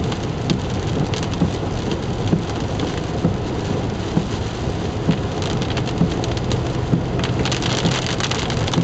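Heavy rain hitting a moving car's windshield and roof, heard from inside the cabin over steady tyre and engine noise on a wet road. The rain grows heavier about seven seconds in.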